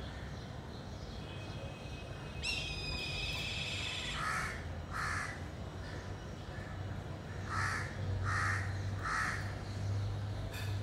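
A kite gives one high, drawn-out whistled call that drops slightly in pitch, about two and a half seconds in, followed by crows cawing, twice and then three times.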